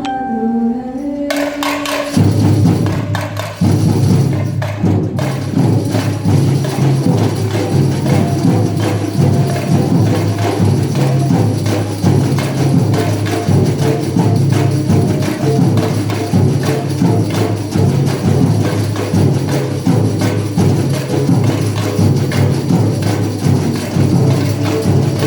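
A band playing live at a rehearsal, loud music with a strong bass line and busy percussion on a steady beat. The full band comes in about two seconds in, after a few held notes.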